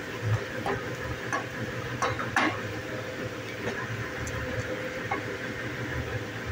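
Wooden spatula stirring and mashing thick cooked chana dal in an aluminium pressure cooker, with a few short knocks of the spatula against the pot, over a steady low rumble.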